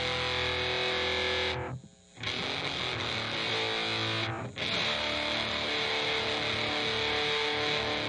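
Electric guitar played through a harmonic percolator fuzz pedal: distorted chords are struck and left to ring. They cut off briefly near the two-second mark, and again for a moment about halfway through.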